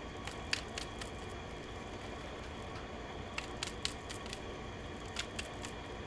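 Oracle cards being handled: light clicks and flicks in small clusters of two or three, over a low steady hum.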